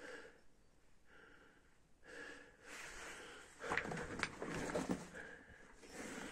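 A person breathing hard in a series of hissing, wheezy breaths while squeezing through a low cave passage. Partway through come louder scrapes and a few sharp knocks as they move against the rock.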